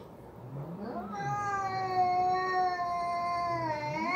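A domestic cat's long, drawn-out yowl: it starts low about a second in, holds steady for a couple of seconds, then climbs in pitch near the end. It is the threatening caterwaul of a cat squaring off with another cat before a fight.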